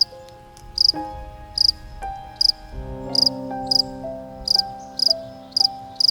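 Cricket-like chirps, short and high, repeating about twice a second over background music with sustained keyboard notes.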